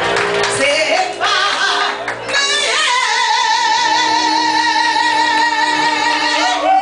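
Live singing over a backing track, ending in one long high held note with a wide vibrato from about three seconds in until near the end.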